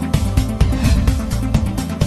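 News-channel intro theme music with a steady beat.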